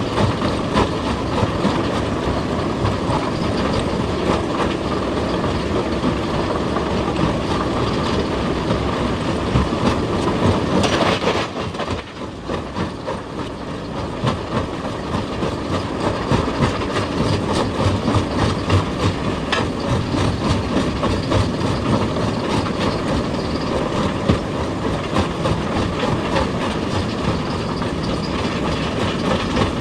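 Heavy excavator at work: its engine running under a dense, rapid metallic clatter that keeps up throughout, dropping off briefly about twelve seconds in before building back.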